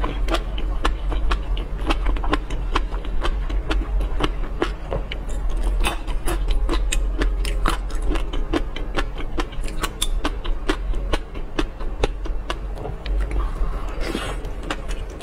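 Close-miked chewing of seafood coated in fish roe: a dense, irregular run of sharp wet clicks and crunches, over a steady low hum.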